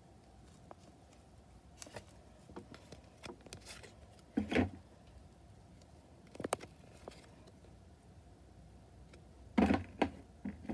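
Football trading cards being handled and swapped in the hand: scattered light clicks and short rustles of card against card and fingers, with louder brief handling noises a little before halfway, a couple of seconds later, and near the end.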